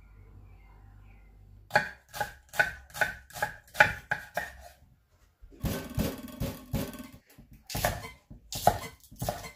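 Kitchen knife chopping on a cutting board. A quick run of sharp chops, about two or three a second, starts a couple of seconds in, breaks off briefly, then more chopping follows.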